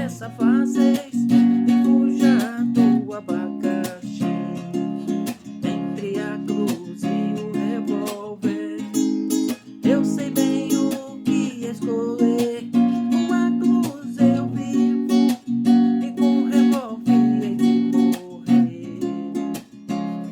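Acoustic guitar music, plucked and strummed in a steady, continuous accompaniment.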